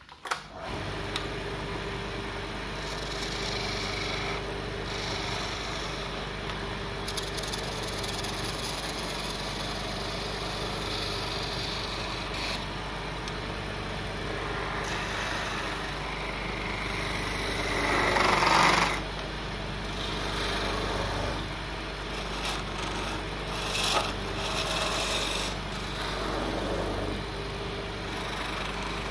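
A wood lathe's electric motor starts up and runs with a steady hum while a hand chisel cuts and scrapes the spinning mahogany handle. The scraping is uneven, loudest for about a second a little past the middle, with another short swell later.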